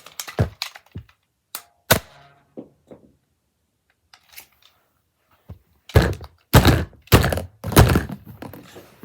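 A series of dull thuds and knocks: a few scattered ones in the first two seconds, then four loud thuds in quick succession about six to eight seconds in.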